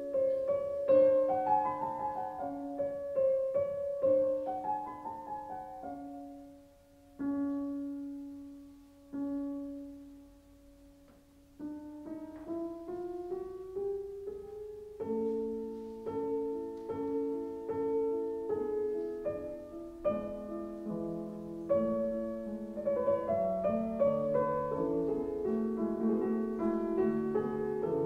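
Background piano music: a slow melody that thins to a few held, fading notes in the middle, then climbs in a rising run into fuller chords.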